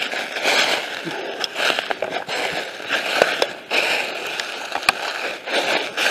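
Footsteps crunching through dry leaf litter and twigs, a step about every two-thirds of a second, with sharp crackles of snapping twigs among them.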